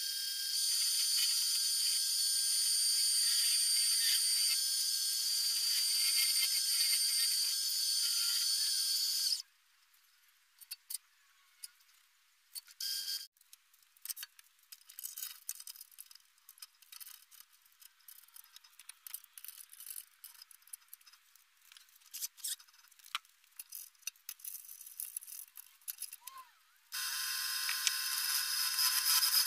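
A wood lathe runs with a steady high hiss for about nine seconds, then stops. A long quiet stretch of small clicks and handling knocks follows. Near the end a motor-driven buffing or honing wheel starts running with a steady hiss and a low hum.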